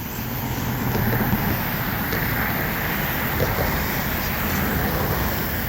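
Road traffic passing on a highway: a steady rush of car tyres and engines that swells about a second in.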